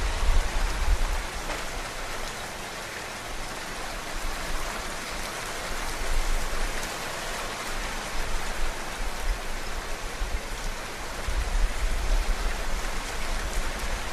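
Steady rain, a dense even hiss, with low rumbling bursts near the start and again about eleven seconds in.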